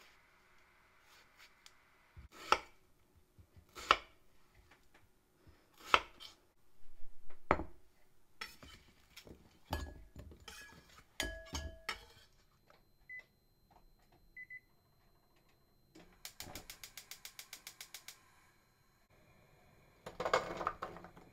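Kitchen knife chopping winter melon on a bamboo cutting board, four firm strokes, followed by chunks clinking into a glass bowl. Two short beeps, then a gas-hob igniter clicking rapidly for about two seconds, and near the end the melon chunks tumbling from the glass bowl into a nonstick frying pan.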